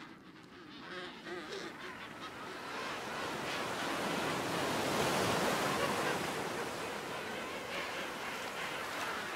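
Surf washing against the shore: a steady rush of waves that builds over the first few seconds, with a few faint penguin calls near the start.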